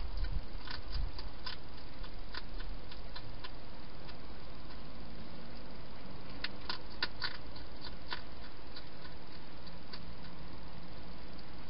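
Wild hedgehog eating from a bowl inside a plastic feeding station: irregular sharp crunching clicks in small clusters, over a steady hiss.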